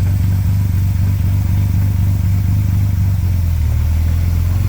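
1938 SS Jaguar 3½ Litre's overhead-valve straight-six engine running steadily at low revs, with an even low pulsing hum, as the car is reversed.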